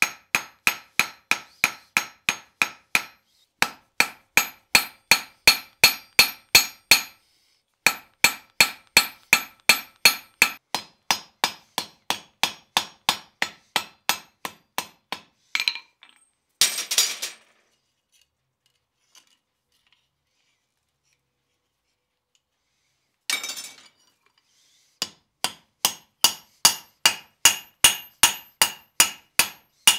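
Hand hammer striking a red-hot iron rod on a steel anvil, about three blows a second, each with a bright anvil ring, to draw out the point of a nail. The blows pause briefly twice. Midway there is a short rasping scrape, then a quiet stretch and a brief rustle. Quick ringing blows start again near the end as the nail head is forged in a nail header.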